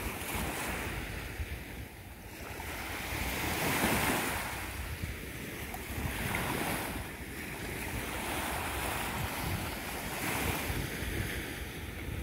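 Small sea waves washing onto the shore, the hiss swelling and falling away every few seconds, with wind rumbling on the microphone.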